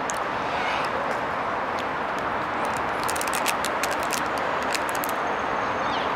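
Steady outdoor background noise, with a quick run of sharp clicks about three to five seconds in.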